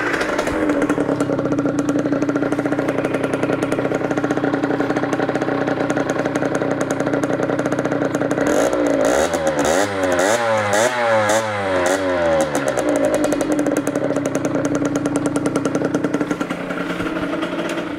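Yamaha DT50's 50cc two-stroke engine through a Tecnigas E-Nox expansion-chamber exhaust, idling steadily, then blipped in a quick series of revs about halfway through before settling back to idle.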